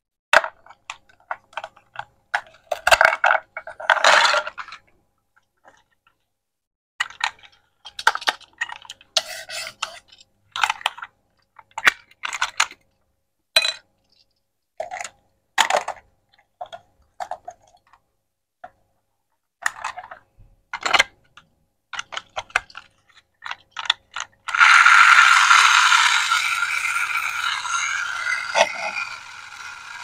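Hard plastic toy parts clicking and clattering as they are handled and fitted together. About 25 seconds in, a small battery motor starts a steady whirring whine, the toy vacuum cleaner switched on, growing fainter toward the end.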